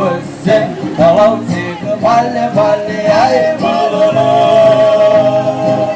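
Live singing by Marshallese performers: a sung melody over a rhythmic backing, with one long held note in the second half.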